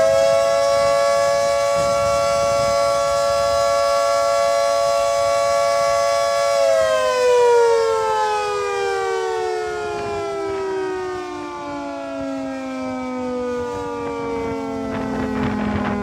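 Federal Signal 3T22A three-tone rotating siren sounding the attack (wavering) signal: its chord holds at full pitch for about six and a half seconds, then slides slowly down in pitch for the rest of the time.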